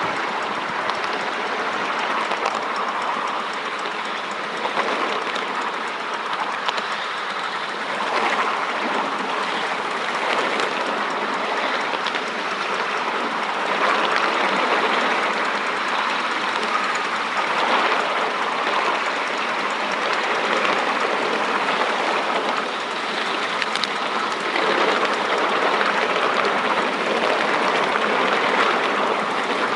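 Miniature train riding along 7¼-inch gauge track: a steady rattle and rumble of wheels on the rails, with scattered clicks over the rail joints.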